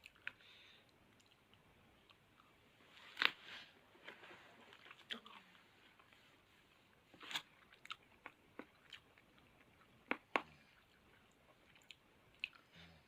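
A person biting into and chewing ripe guava, with scattered short, crisp crunches, the sharpest about three seconds in.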